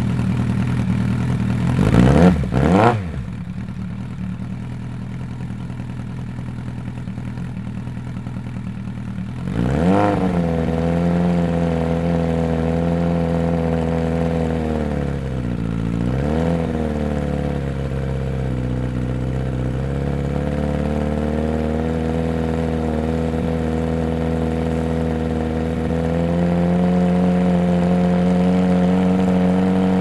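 Suzuki Bandit GSF1200S inline-four running through a DanMoto GP-style exhaust: idling, two quick throttle blips about two seconds in, then revved about ten seconds in and held at steady raised revs, dipping briefly around the middle and rising a little near the end.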